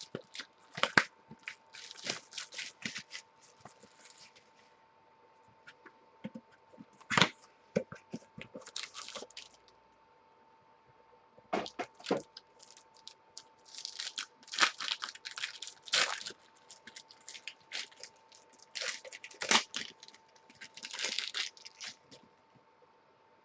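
A sealed box of trading cards being opened: plastic wrap and packaging tearing and crinkling in several separate bursts of sharp crackles, with short pauses between them.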